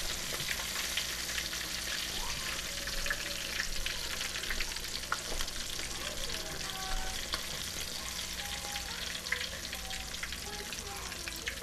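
Fish fillets frying in a pan: a steady sizzle with many small crackles and pops.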